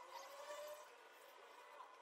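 Near silence: faint background ambience.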